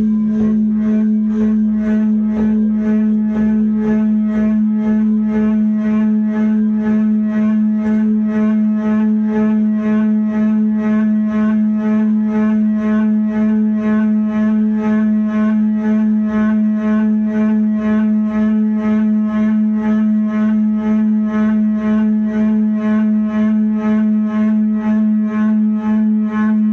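A sustained instrumental drone held on a single low note with a few higher overtones, pulsing evenly about twice a second.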